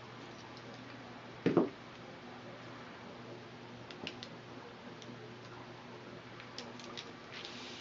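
Hand work with a craft knife on a sheet of flattened barley straw: a single dull knock about 1.5 s in, then light ticks and clicks as the cut-out straw letter is lifted free, over a steady low hum.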